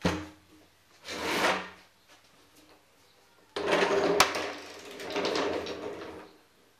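A wooden frame on casters is set down on a concrete floor with a thump, then rolled across it. The casters rumble for a few seconds, with one sharp click partway through.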